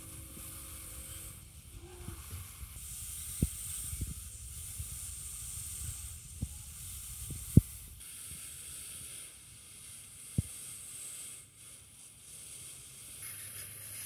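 Steady hiss and low rumble of background noise, with a handful of short sharp clicks, the loudest just past halfway.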